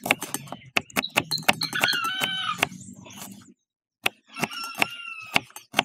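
Kitchen knife chopping small red onions on a wooden cutting board, a quick irregular run of taps, while chickens cluck in the background. Everything breaks off for about half a second in the middle.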